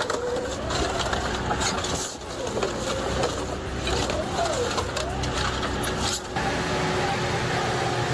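Heavy industrial shredder running under load: a continuous low drone with a whine that bends up and down, broken by sharp knocks and cracks as material is torn apart. The sound dips briefly about two seconds in and changes abruptly about six seconds in.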